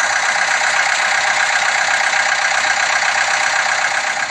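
Excavator engine sound effect: an engine running steadily at one even level, thin-sounding with little deep bass.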